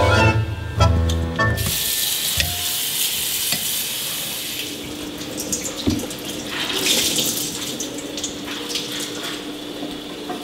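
Violin music ends about a second and a half in. Then a kitchen faucet runs steadily into a stainless sink, water splashing over a bunch of grape leaves being rinsed by hand.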